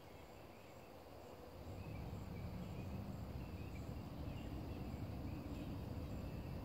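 Insects chirping in a steady, even rhythm, with a low rumble swelling up about two seconds in and continuing under them.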